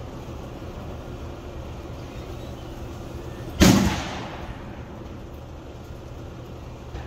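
A single loud gunshot about three and a half seconds in, with a short fading tail, over a steady low rumble.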